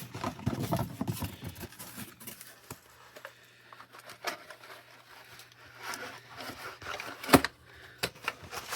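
Packaging and small parts being handled during an unboxing: rustling and scraping of packing material with scattered light clicks, and one sharp knock about seven seconds in, the loudest sound.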